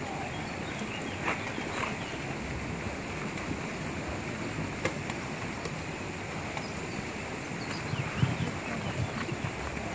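Steady outdoor background noise by a lake, an even hiss with a few faint sharp clicks.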